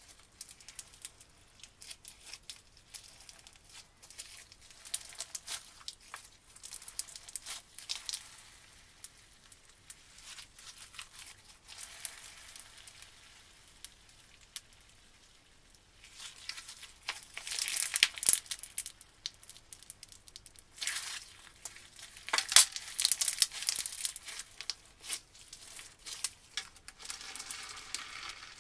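Crunchy, gritty-textured slime being squeezed, stretched and pressed flat by hand, giving a dense crackling and crinkling. It grows louder in two stretches past the middle.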